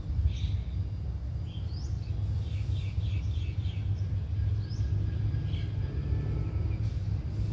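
A low, steady rumble with birds chirping over it several times, including a quick run of chirps about two to three seconds in.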